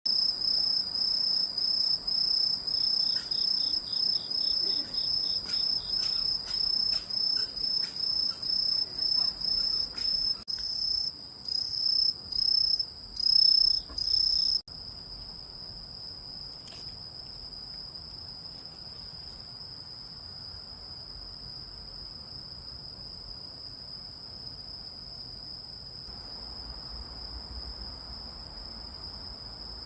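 A singing orthopteran insect (cricket or katydid type) giving a loud, high-pitched song in short, regular chirps, about two a second. About ten seconds in, the chirps lengthen into longer phrases. Midway through the song cuts off suddenly and is replaced by a fainter, unbroken high trill.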